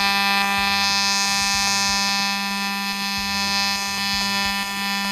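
TIG welding arc on titanium pipe, buzzing steadily with a strong electrical hum and a dense set of high overtones while the weld is laid. A lower hum rises and falls at a slow, regular beat under the steady buzz.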